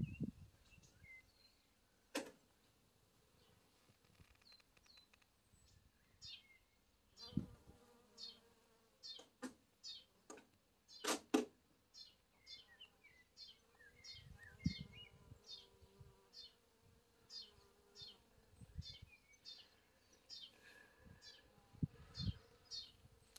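Bees buzzing faintly as they fly around lavender, the hum rising and fading as they pass. Through the second half a bird repeats a short high call about twice a second, and there are a few sharp clicks and low thumps.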